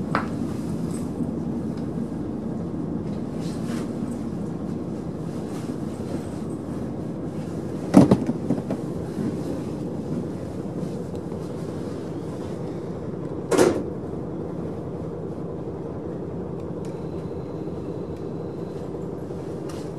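KiHa 40 diesel railcar slowing toward a stop, heard from inside the passenger cabin: a steady low engine hum under running noise. Two sharp knocks sound, the louder about eight seconds in and another a few seconds later.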